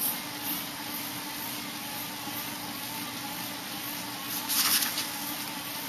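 Bicycle on an indoor trainer whirring steadily, with a short rustle of a handled paper sign about four and a half seconds in.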